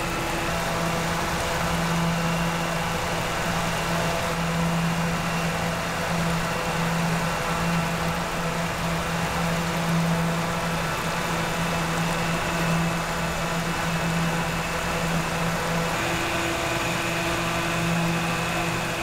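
Steady machine hum from a running motor: an even low drone with a faint high whine over a background hiss.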